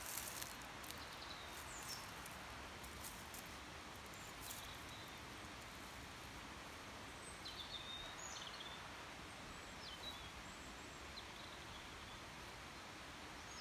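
Quiet woodland ambience: a steady faint hiss of open air, with a few short, faint bird chirps scattered through the second half.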